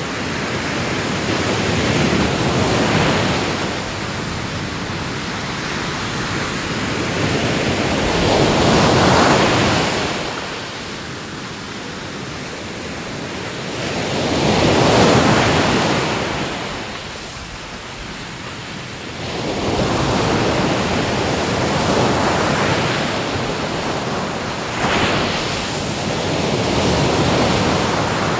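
Ocean waves washing onto the shore, the surf swelling and falling back in surges about every five to six seconds.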